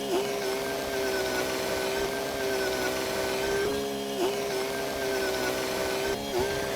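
Bulldozer's diesel engine running under steady load with a high, steady whine, its pitch sagging briefly three times as the machine takes extra load.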